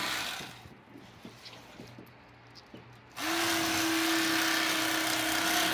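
Electric fillet knife motor running with a steady buzzing hum. It is switched off and winds down about half a second in, then a few faint knocks follow as the fish is handled. Just after three seconds it is switched back on and runs steadily.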